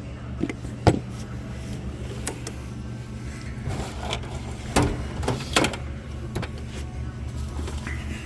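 Hand tools being handled and set down, giving several sharp clicks and knocks, the loudest about a second in and twice more about halfway through, over a steady low hum.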